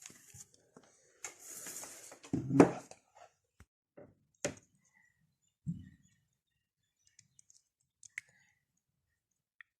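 Scattered clicks and knocks of small objects being handled, with a short hiss just over a second in and a louder thump at about two and a half seconds.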